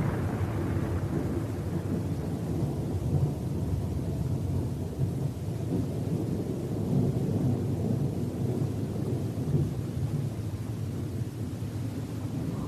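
Low, rolling thunder rumble sound effect, a steady deep roar that swells and eases slightly without a sharp crack.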